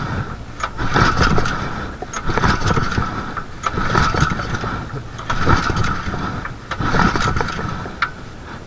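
Robin 6 HP gasoline engine being pull-started again and again, about five recoil pulls about a second and a half apart, turning over without settling into a steady run, as with an engine that won't start.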